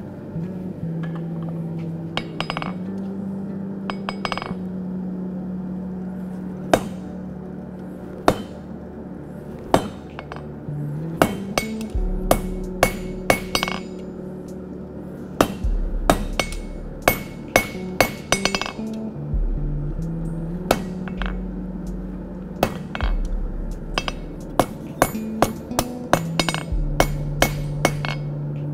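Hand hammer striking a red-hot metal bar on an anvil, each blow a sharp metallic clink with a short ring. The blows come a few seconds apart at first, then in quick runs of several a second from about halfway through. Background music with steady bass notes plays under the hammering.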